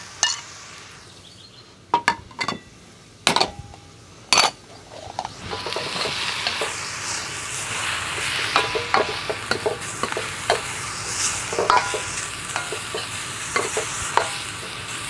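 Beef and broccoli stir fry sizzling in a hot pan while being stirred, the utensil clicking and scraping against the pan. A few sharp knocks come first; then, about five seconds in, the sizzle grows much louder and keeps going.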